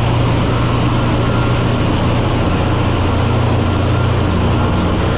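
Tanker ship's engine-room machinery running: a loud, steady drone with a strong low hum under a dense wash of noise.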